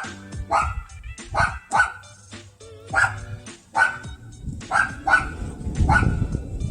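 A dog barking over and over, about ten sharp barks at irregular intervals of roughly half a second to a second.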